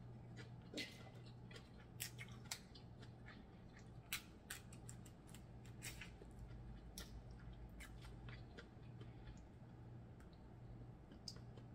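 Snow crab shell being cracked and picked apart by hand: scattered sharp clicks and snaps at irregular intervals, with faint chewing, over a steady low hum.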